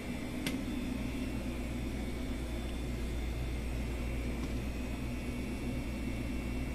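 A steady low mechanical hum, like a fan or kitchen appliance running, with one small click about half a second in.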